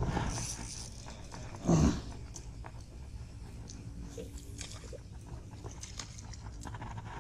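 A spinning reel is cranked as a small sunfish is reeled in, with faint scattered ticks. A single short, loud sound comes about two seconds in.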